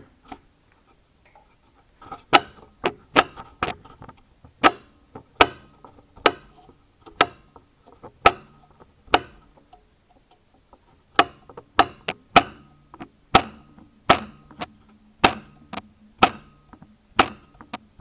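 Loose anti-roll bar (sway bar) drop link knocking as the bar is rocked by hand: a run of sharp knocks, roughly one a second, with a short pause about halfway. The knock is the sign of a loose drop-link connection, a typical suspension knocking noise.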